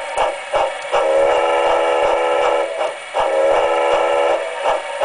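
Model steam locomotive sound effect played through a small model railway speaker in an enclosure: steady rhythmic chuffing, about three beats a second, with two long whistle blasts, the first about a second in and the second a little after three seconds.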